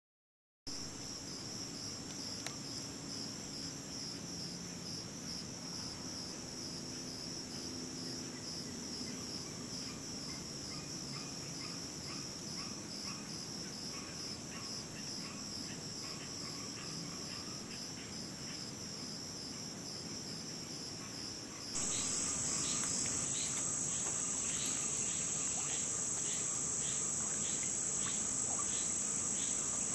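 Dense chorus of swamp insects, a steady pulsing high trill, which jumps louder about 22 seconds in.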